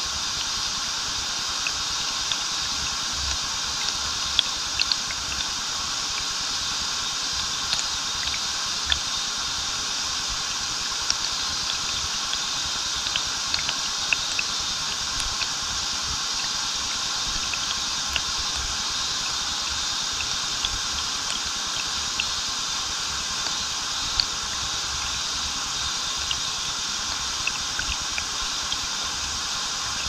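Waterfall pouring steadily, a constant rushing of falling and flowing water with scattered small splashes of water hitting.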